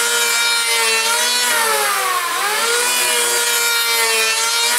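Electric hand planer running and shaving a 2x4 wheelbarrow handle: a steady motor whine with the hiss of cutting wood, dipping briefly in pitch about two seconds in before recovering.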